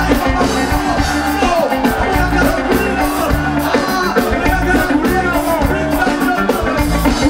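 Live band playing a steady groove on drum kit, bass guitar and electric guitar, with regular cymbal strokes over a repeating bass line.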